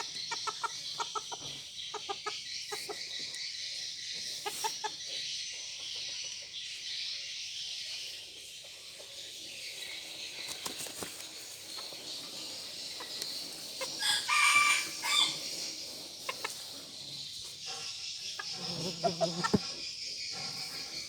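A rooster crows once, about two-thirds of the way through. Scattered clucks sit over a steady high chirring of insects.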